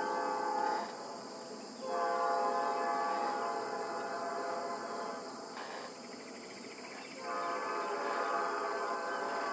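Train horn sounding a chord in long blasts: one ending about a second in, a second lasting several seconds, and a third starting near the end, with a pause of a second or more between them. Steady chirring of crickets or other insects runs underneath.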